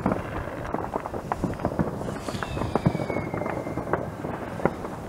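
Many distant fireworks going off across a town, a continuous rumble of overlapping bangs and pops. A whistling firework sounds a thin tone that falls slowly in pitch, starting a little after two seconds in.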